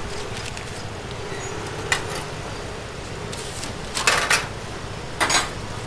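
Metal kitchen clatter: a perforated stainless ladle and stainless trays clinking, a sharp clink about two seconds in and two short rattling clatters near the end, over steady background noise.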